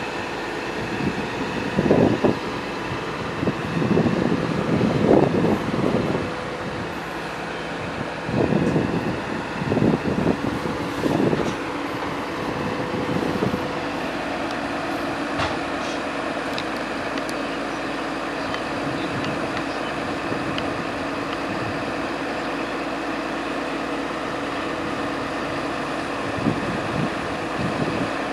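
CAT 320D hydraulic excavator's six-cylinder diesel engine running under working load as the machine digs and swings a bucket of soil, growing louder in several surges over the first half, then running steadily.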